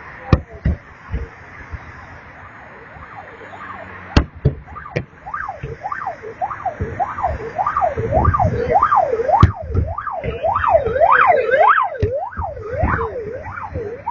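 Fireworks going off: many whistles rising and falling in pitch, overlapping and growing louder toward the middle, with several sharp bangs and crackles.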